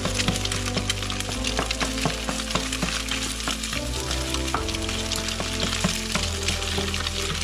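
Eggs sizzling and crackling in hot oil in a frying pan while a spatula stirs and scrapes them into a scramble, with chopped garlic frying at the side of the pan. Background music with held low notes plays underneath.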